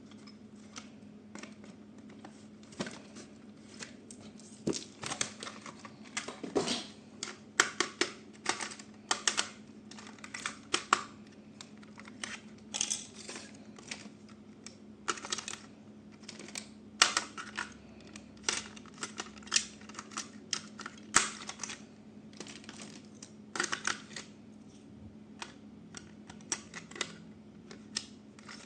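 Irregular, quick clicks and taps of small hard objects being handled, coming in clusters of several a second, over a steady low hum.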